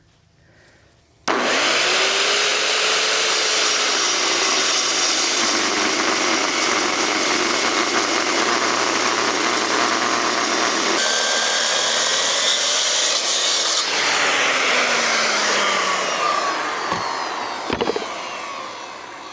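Metal-cutting power saw starting up about a second in, its pitch rising as it spins up, then cutting steadily through thick steel plate for about twelve seconds before winding down with a falling pitch as the cut finishes. A few sharp clanks near the end.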